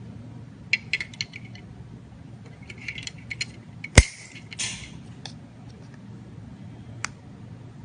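The small plastic mounting tabs of a miniature speaker being snipped off with cutters. There is one sharp snip about four seconds in, with light clicks of the part and tool being handled before and after it.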